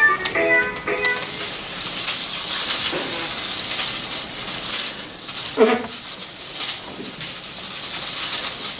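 Metal construction-kit pull toy rattling and clicking as it is pulled on its wheels across a tile floor. Music cuts off about a second in, and a brief voice is heard about halfway through.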